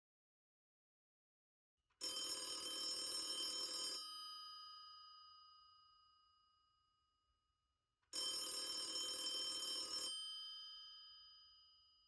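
Telephone bell ringing twice, each ring about two seconds long and about four seconds apart, with the bell tones ringing on and fading after each ring.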